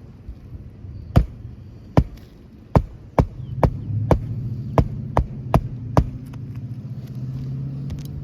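Nails being driven into a new asphalt roof shingle: about ten sharp strikes, roughly two a second. A steady low motor hum comes in about three seconds in.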